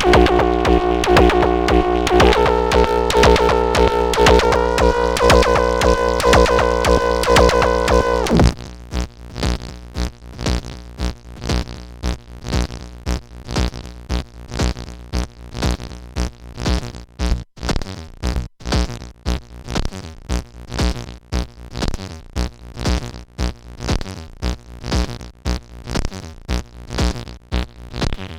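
Moog DFAM analog percussion synthesizer playing a held tone that steps up in pitch twice, then about eight seconds in it cuts abruptly to a fast, steady sequence of short percussive hits.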